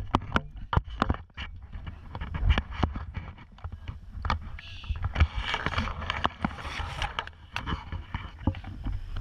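Wind rumbling on a wrist-mounted camera's microphone during a parachute landing, with many sharp knocks and clicks from the harness and the camera being jostled. A rustling burst about halfway through comes from parachute fabric and lines being handled.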